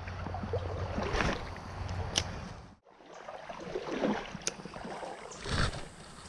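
Creek water running and sloshing, with a few short sharp clicks; the sound cuts off abruptly about three seconds in and resumes.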